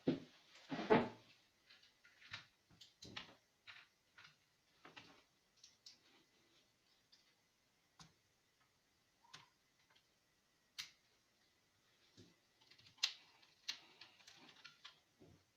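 Irregular small clicks and taps, a few a second at first and sparser later, with a faint steady high tone underneath in the second half.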